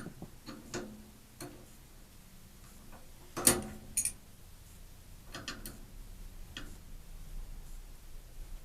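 Scattered light clicks and knocks from tools and metal parts being handled at a gas water heater's burner, the loudest about three and a half seconds in, followed by a second about half a second later.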